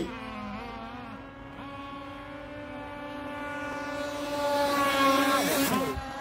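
A radio-controlled model boat's motor running at a steady pitch, growing louder as the boat comes closer, then dropping in pitch as it passes near the end.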